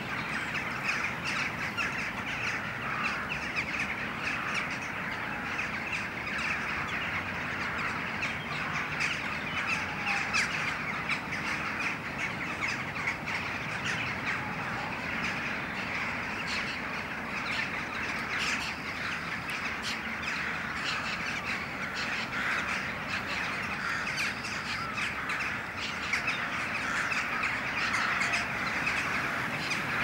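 Dense, unbroken chatter of a large flock of common starlings, many short clicks, squeaks and whistles overlapping into one steady din, as the birds gather in a murmuration before roosting.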